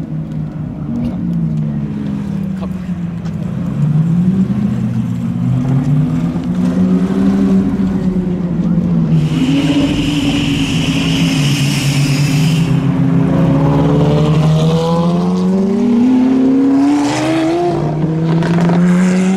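Supercar engines, among them Ferrari V8s, revving up and down as the cars drive slowly past, the pitch sweeping up and falling back several times. About nine seconds in there is a hiss lasting a few seconds, and a strong rising rev near the end.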